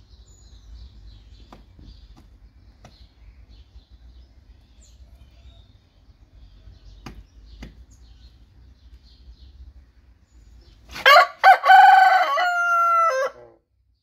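Índio rooster crowing once near the end: a loud, broken crow whose last note is drawn out and sinks slightly before cutting off. Before it there are only faint high chirps and a few soft clicks.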